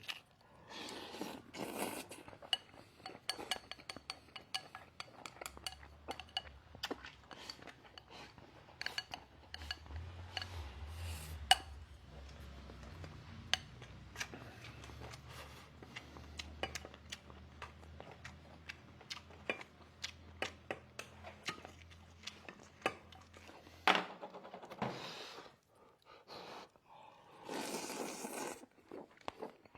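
Eating utensils clicking, clinking and scraping against a bowl as someone eats, in many small separate taps throughout. A low steady hum runs underneath for most of the middle and stops about 24 seconds in.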